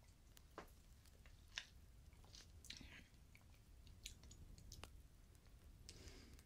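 Faint close-miked mouth sounds of sipping a drink from a glass: scattered soft wet clicks of lips and tongue, with a short swallow about two and a half seconds in and a soft breath near the end.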